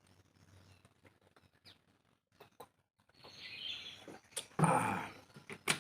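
Faint wet mouth clicks and small ticks from eating, then a louder rustling burst about four and a half seconds in and a sharp click just before the end.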